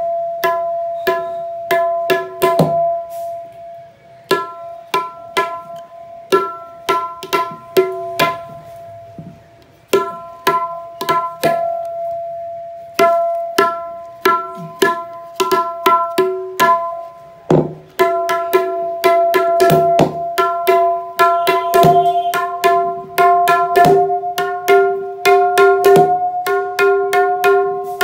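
Dayan (right-hand tabla) struck with the fingers in quick runs with short pauses, each stroke ringing with a clear pitched tone tuned to E. In the second half a lower ring joins, and the pitch creeps slightly higher.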